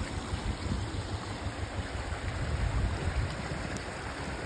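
Fast-running floodwater rushing steadily over and past a road, with wind buffeting the microphone.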